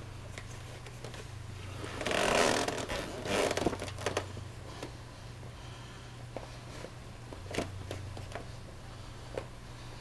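Servus rubber buckle overshoes shifting and rubbing on carpet: a scraping rustle from about two seconds in lasting a second or two, then a few scattered light clicks.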